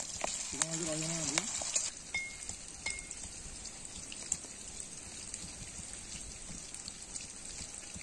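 Pieces of fish sizzling as they fry in oil in a black iron kadai, with a few clicks as pieces are lowered in with a spoon, and a short hum from a person about a second in. After about two seconds the sizzling drops away, leaving a faint hiss with a few light knocks.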